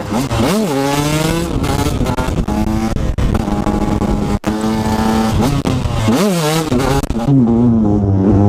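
Husqvarna TE 125's two-stroke single engine, with an aftermarket exhaust, revving hard as the bike accelerates. The pitch sweeps up and drops at the gear changes about half a second in and again near six seconds, then holds a steady note near the end.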